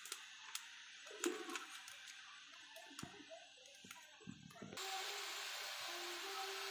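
A metal spoon taps and scrapes in a black pan of amaranth greens. About five seconds in, a steady hiss sets in abruptly: the greens sizzling in the hot pan over a wood fire.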